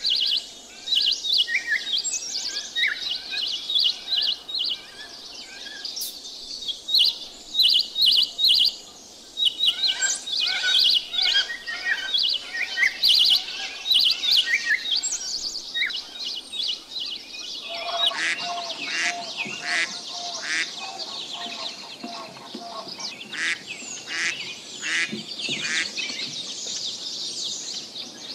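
Small birds chirping and twittering with rapid, high calls. The mix of calls changes at about ten seconds and again at about eighteen seconds in, where a steady lower note joins the chirping.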